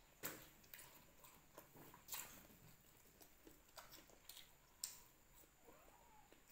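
Near silence with a few faint, sharp clicks and small mouth sounds from eating fried tofu close to the microphone.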